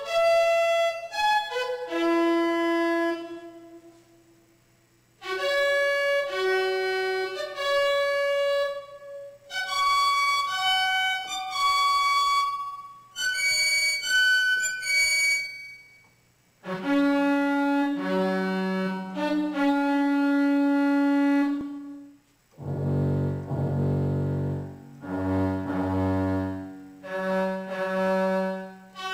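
MacBeth M5/M5N analog synthesizer played from its keyboard: phrases of sustained melodic notes with rich overtones, with short pauses between phrases and a lower, denser group of notes a little past two-thirds of the way in. Picked up by a camcorder microphone rather than recorded direct.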